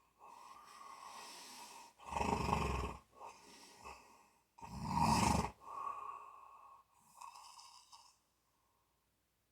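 Snoring: two loud snores, each about a second long and some two and a half seconds apart, with quieter breaths between them. It falls quiet near the end.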